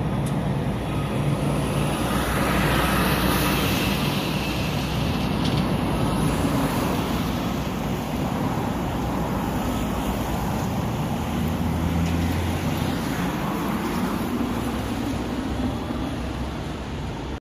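Steady street traffic noise with engines running, swelling as a vehicle passes about three seconds in.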